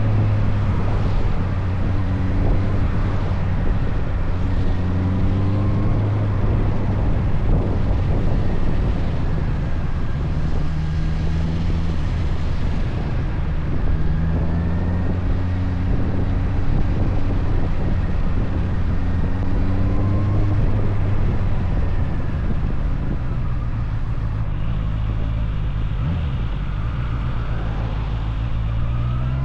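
Motorcycle engine running on the road. Its pitch climbs several times as it accelerates and falls back between, over wind noise.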